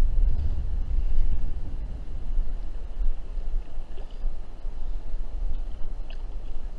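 Wind buffeting the microphone in an uneven low rumble, over the steady rush of river water.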